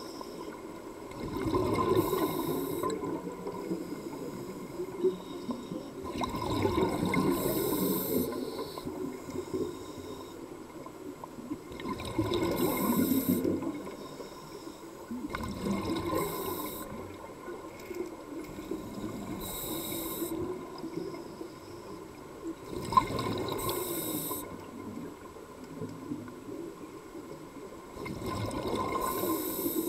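Scuba breathing heard underwater: the diver's regulator hisses on each inhalation, and each exhalation gives a rush of bubbles. There is a breath about every five to six seconds, steady throughout.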